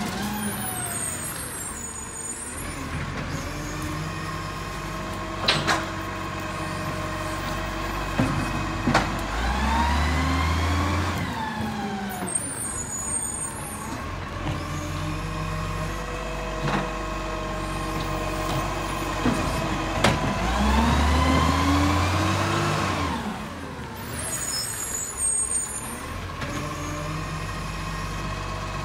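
Iveco side-loader garbage truck's diesel engine revving up and falling back three times as it moves off and pulls up again between bins. Short air-brake hisses come twice, with a few sharp knocks in between.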